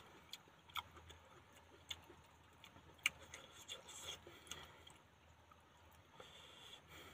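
Near silence broken by faint, irregular clicks of chewing and of food being dabbed onto a steel plate, most of them in the first half.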